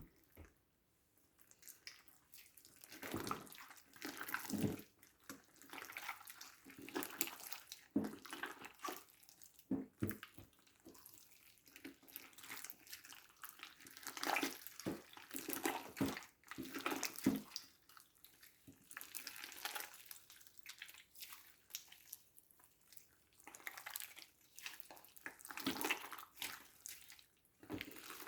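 Wet, sticky slime being mixed and squished by hand, giving irregular squelching bursts.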